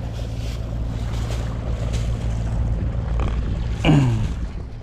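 Wind buffeting the microphone over a steady low hum. About four seconds in, a man makes a brief falling vocal sound.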